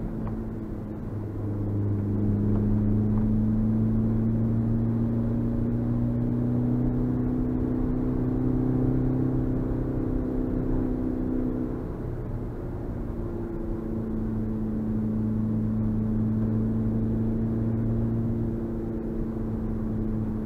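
Suzuki Swift Sport's 1.6-litre four-cylinder engine heard from inside the cabin while driving, its pitch slowly rising under power, then easing off about twelve seconds in and settling back to a steady run.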